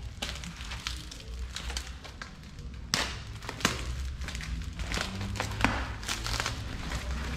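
Foam packing wrap crinkling and rustling as it is pulled open and folded by hand, with a few sharp crackling snaps, the loudest about three seconds in, over a low steady background rumble.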